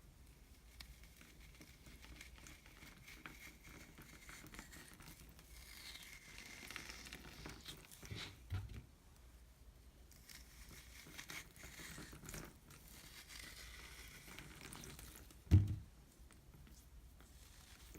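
Wet floral foam being crushed: faint, continuous crunching and crackling, with a small thump about halfway through and a short, much louder thump a few seconds before the end.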